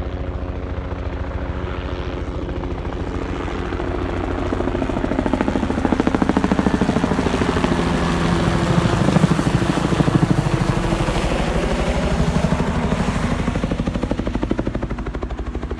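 Helicopter flying over, its rotor chop and engine growing louder toward the middle and then fading.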